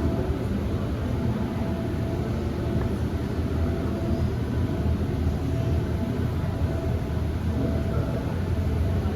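Steady low rumble of a ride boat gliding along its water channel, with a faint steady tone above it.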